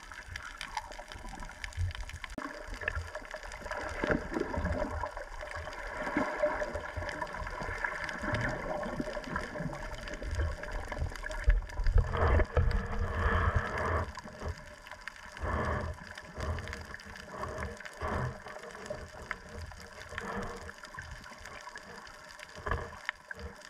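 Underwater sound from a camera held just below the surface: muffled gurgling and bubbling of moving water, with uneven low rumbles that are strongest about halfway through.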